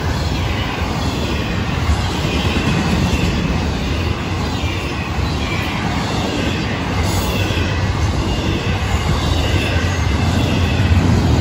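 Freight train of double-stack intermodal well cars rolling past: a steady loud rumble of steel wheels on rail, with faint high squeals now and then.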